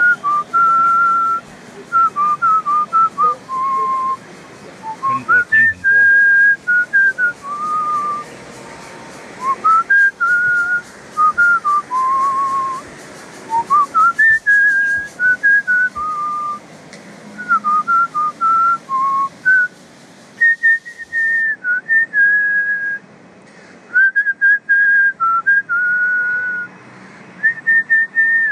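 A person whistling a tune: one clear line of notes that slide into one another, in short phrases with brief pauses between them.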